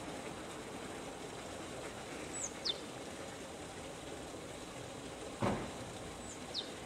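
Outdoor park ambience: a steady low background rumble, with two thin, quick bird whistles that fall in pitch, one about two and a half seconds in and one near the end. A little after five seconds a single short dull thump, the loudest sound.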